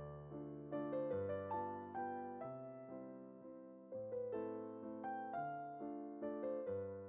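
Gentle piano background music: soft chords and a simple melody, each note struck and fading, over a slow-moving bass.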